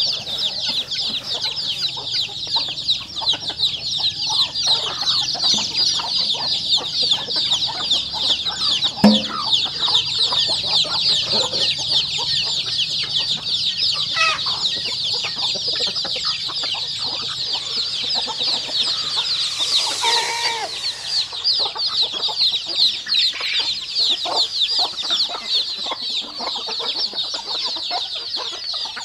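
A flock of chickens with many chicks feeding. The chicks peep densely and without a break, high-pitched, over scattered clucks from the hens. One louder call from an adult bird comes about two-thirds of the way through.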